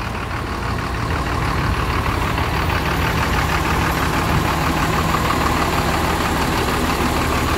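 Intercity bus's diesel engine idling steadily.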